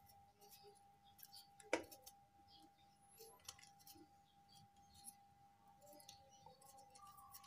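Faint scratchy scrapes and small clicks of fresh ginger root being peeled, with one sharper click just under two seconds in, over a faint steady tone.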